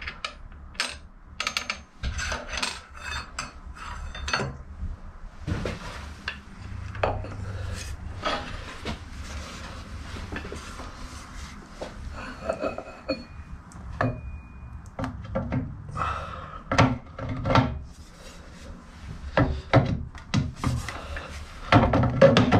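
Metal parts of a Bridgeport milling machine head being handled during reassembly: irregular clinks, scrapes and knocks, with a cluster of louder knocks near the end as the motor is handled on the belt housing.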